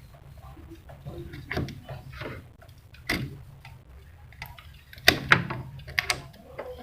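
Irregular clicks and taps of small hard objects being handled, the loudest a close pair about five seconds in, over a low steady hum.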